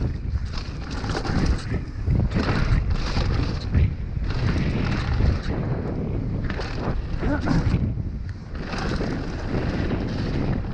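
Wind buffeting an action camera's microphone over the rumble and rattle of a downhill mountain bike's tyres and frame on a rough dirt and gravel trail, rising and falling irregularly with the bumps.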